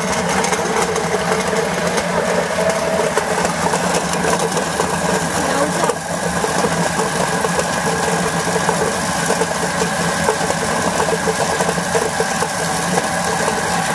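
Electric chestnut-peeling machine running steadily: a motor hum under a dense rattle of chestnuts tumbling and grinding in the spinning bowl while the shells and inner skins are stripped off and sprayed out of the chute.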